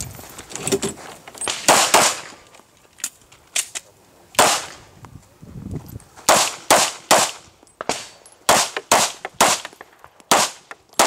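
Semi-automatic pistol fired in a string of about a dozen sharp shots, many in quick pairs about half a second apart, with short pauses between the pairs.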